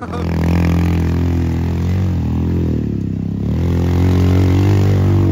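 Modified ATV's engine running loudly under throttle, its pitch sagging slightly and then picking up again around the middle.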